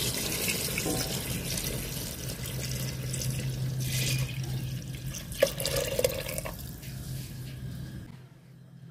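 Thin coconut milk poured in a thick stream into a pot of goat curry: a continuous splashing gush that thins out about six and a half seconds in and stops near the end.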